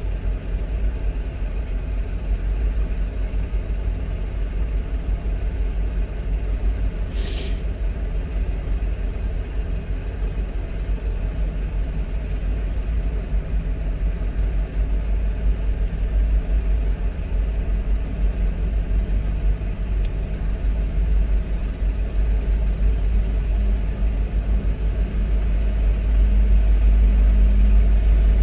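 Car engine idling, a steady low rumble heard from inside the cabin of a stationary car, growing a little louder near the end. A short hiss sounds once about seven seconds in.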